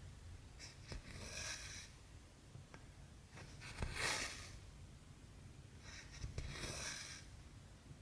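Cotton embroidery floss pulled through cross-stitch canvas by hand: three soft swishes, about a second in, at about four seconds (the loudest) and again from six to seven seconds.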